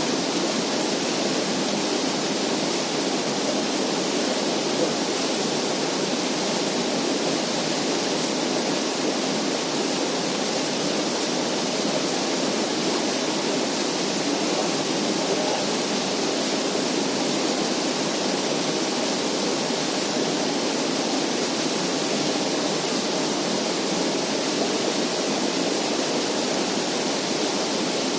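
Steady, unbroken rushing of running water, like a stream or small waterfall, with no distinct splashes or knocks.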